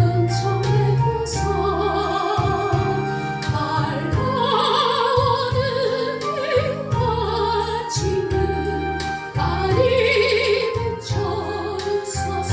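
A solo voice singing a Korean gospel song in phrases with heavy vibrato, over a sustained instrumental accompaniment with a steady bass.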